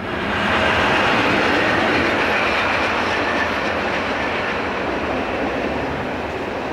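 SBB Re 4/4 II electric locomotive and its passenger coaches running past over crossover pointwork. Steady wheel-and-rail noise with clickety-clack from the wheels over the joints and points, swelling in the first second, then slowly easing.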